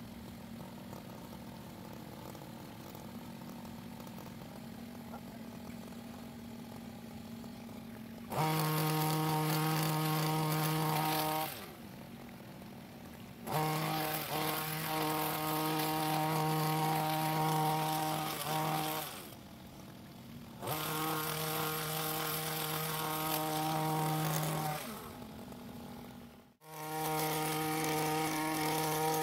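STIHL long-reach hedge trimmer's small petrol engine idling steadily, then throttled up to a high buzzing run four times, for a few seconds each, as the blade trims the foliage. It drops back to idle between bursts.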